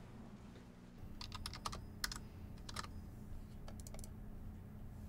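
Faint typing on a computer keyboard: irregular runs of quick key clicks, starting about a second in.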